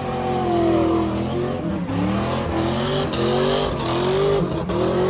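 Car engine revving hard in repeated surges: pitch drops early on, then climbs and falls again about four times. Tyres squeal briefly about halfway through.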